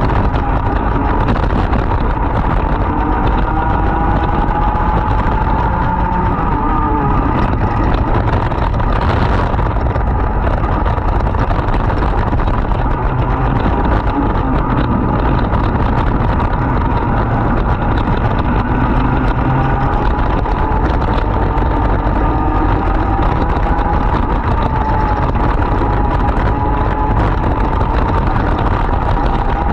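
Race kart's 100cc two-stroke engine running flat out at race pace, its pitch rising and falling repeatedly as it accelerates and lifts.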